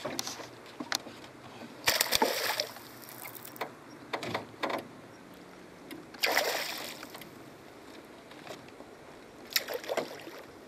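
A hooked payara (peixe-cachorra) thrashing and splashing at the water's surface beside a boat, in four separate bursts, the loudest about two seconds in.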